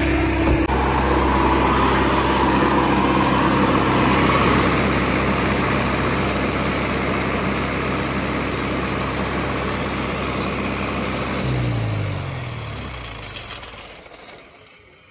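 Stationary green John Deere engine running steadily, then shut off: about twelve seconds in its pitch falls as it spins down, and it stops within a couple of seconds.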